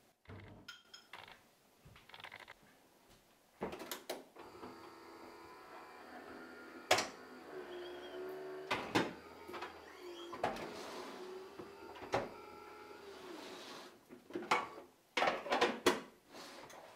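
Kitchen handling noises: a string of sharp knocks and clicks from cupboard doors and crockery being moved and set down, with a low wavering hum through the middle stretch.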